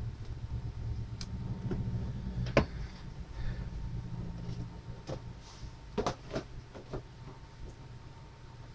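A few short clicks and knocks over a low steady hum, the loudest knock about two and a half seconds in and a quick cluster of knocks around six to seven seconds in.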